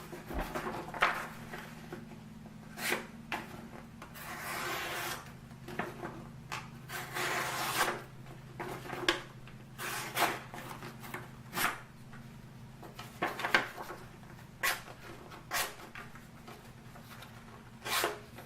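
Sharpness-test cuts with a balisong's 420 stainless blade: a string of short slicing, scraping strokes, with a few longer draws of about a second each.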